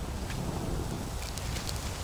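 A person blowing hard into a smouldering tinder bundle, a low breathy rush, to bring the ember up into flame; a few faint crackles come through about a second in.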